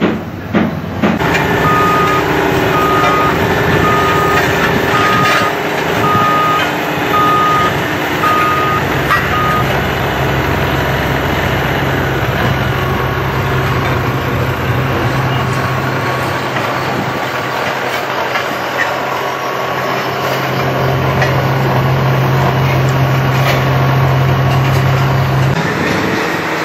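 Heavy construction machinery running steadily, with a vehicle's reversing alarm beeping about once a second, some nine times, in the first third. A low steady engine hum sets in later and cuts off abruptly near the end.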